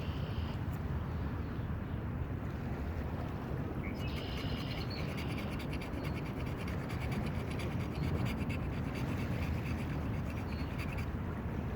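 Rapid scratching strokes from about four seconds in to near the end: a hand-drill fire's wooden hearth board being scraped to widen the hole so the spindle stops sticking. A steady low rush of wind runs underneath.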